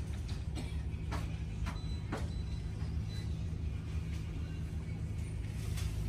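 Steady low hum of shop background noise, with a few faint clicks and rustles in the first couple of seconds.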